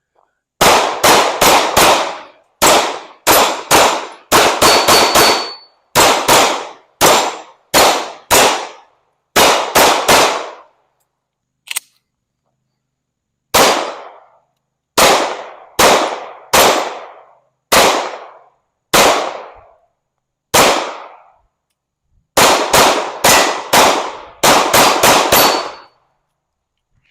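Glock 19 9mm pistol firing a long string of shots, some in quick runs of two or three and some about half a second apart, with a pause of about three seconds near the middle.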